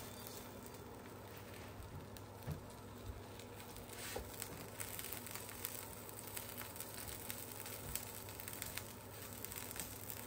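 Faint crackling and sizzling of a filled flour tortilla cooking on an electric griddle, with a few light spatula taps and scrapes as it is folded over.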